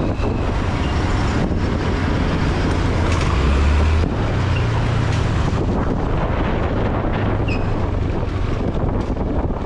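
Wind buffeting the microphone on a moving motorbike, over a steady low rumble of the bike's engine and road noise.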